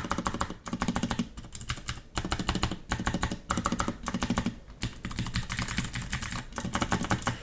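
Typing in quick runs on a Ducky Shine 2 mechanical keyboard fitted with metal keycaps: dense clacking key strikes with brief pauses between runs. The metal caps make the keystrokes sound a lot different.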